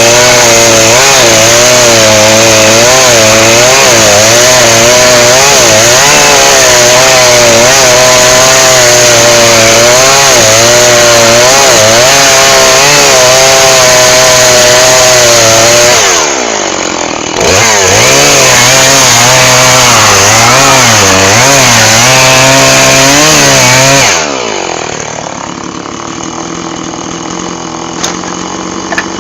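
Two-stroke chainsaw running at high revs while sawing firewood, its pitch wavering. The revs drop briefly about two-thirds of the way through, come back up, and then fall to idle about five seconds before the end.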